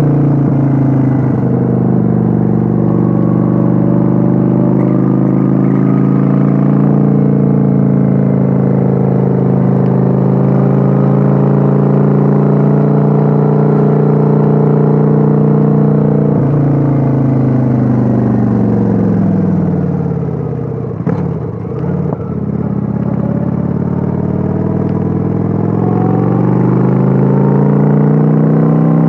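Kawasaki Vulcan 900's V-twin engine, recorded on board while cruising: a steady run, then the pitch falls for several seconds as the throttle is rolled off, a short dip in level about two-thirds in, and the pitch rises again as it accelerates.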